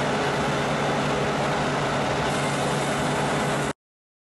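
Engine of an Uragan rocket launcher truck idling steadily, then cutting off suddenly near the end.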